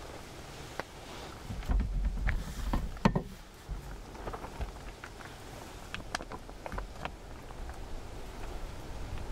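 Rain falling, single drops tapping irregularly on a surface, over a low wind rumble that swells briefly a couple of seconds in.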